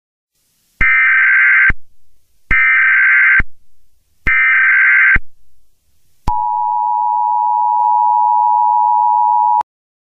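Emergency Alert System tones announcing an Emergency Action Notification: three short bursts of warbling SAME header data, each just under a second, followed by the steady two-tone EAS attention signal held for about three seconds and cutting off abruptly.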